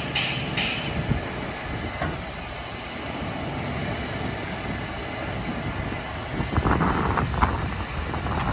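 Steady low rumble of an idling diesel truck engine, with wind buffeting the microphone in gusts over the last two seconds.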